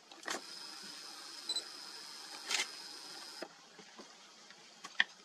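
Camera zoom lens motor whining with a steady high tone and hiss while the lens zooms out, cutting off about three and a half seconds in. A few sharp clicks, the loudest near the end.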